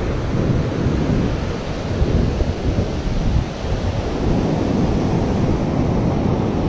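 Wind buffeting the microphone over the steady rush of heavy surf breaking on the beach.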